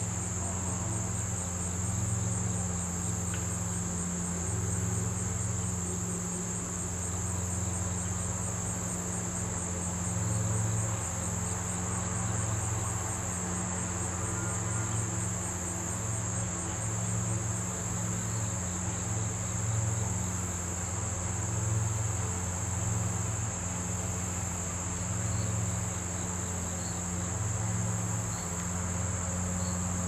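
Crickets trilling steadily in one high, fast-pulsing note, over a low steady hum.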